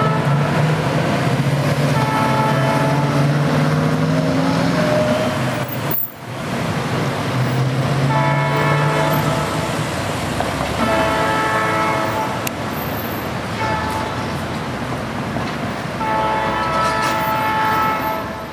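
Diesel locomotive's multi-note air horn sounding a series of blasts over the low drone of its engine: two long, a short and a long, the pattern of a grade-crossing warning, after an earlier long blast. The sound dips briefly about six seconds in.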